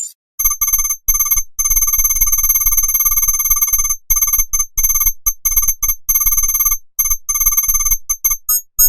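Synthesized "digital typing" computer sound effect: runs of rapid electronic beeps at one fixed pitch, chattering on and off with short gaps, breaking up into a few brief separate blips near the end.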